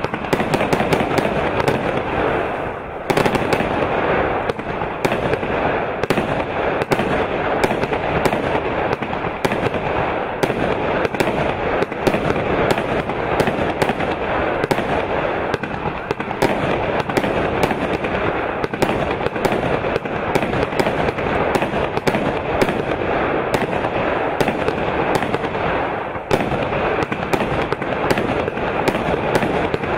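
A 144-shot compound firework cake firing continuously: a dense stream of launches and aerial bursts, bang after bang, with short lulls about three seconds in and near the end.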